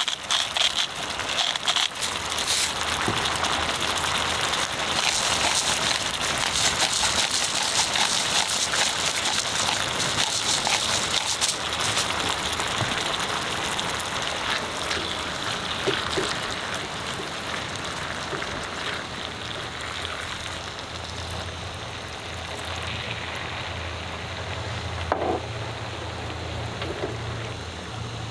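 Cherry tomatoes and fish cubes sizzling and crackling in oil in a hot frying pan while being stirred. The sizzle softens in the last third as the pan turns saucier, and a low steady hum comes in.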